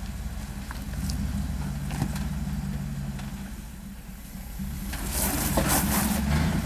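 Off-road 4x4 engine running at low revs, its note rising and falling slightly as it crawls. About five seconds in, a rush of crackling, scraping noise comes over it for more than a second.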